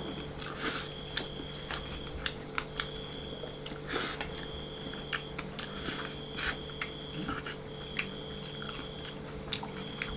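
Close-up eating sounds: chewing and biting chicken with rice eaten by hand, made of many short wet mouth clicks and smacks. Underneath are a steady low hum and an on-off high-pitched whine.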